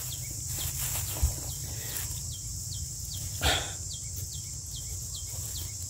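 Field insects calling steadily, with a run of short falling chirps about three a second over a low rumble. A single sharp knock about three and a half seconds in.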